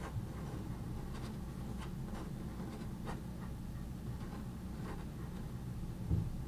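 Light, scattered scratches and ticks of fingers on a door frame over a steady low hum, with a dull thump near the end.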